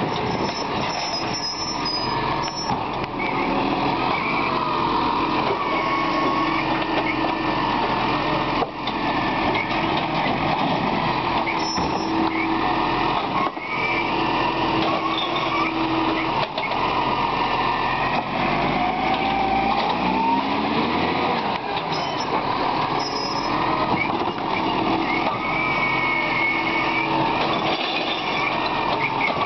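Iveco Acco side-loader garbage truck with a Superior Pak body: its Cummins ISC diesel runs steadily while the hydraulic arm lifts and tips wheelie bins. Squeaks come and go from the arm and packer, which are starting to rub metal on metal.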